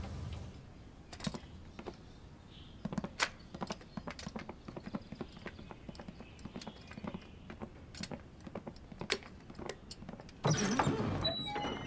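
Scattered light knocks and taps at an uneven pace, then a louder rustling stretch of a second or so about ten and a half seconds in.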